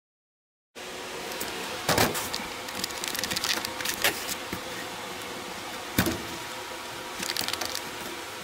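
Handling noise from a handheld camera being moved around, with a steady background hum and crackles, and two sharp knocks about two seconds apart from four. It starts after a brief silence.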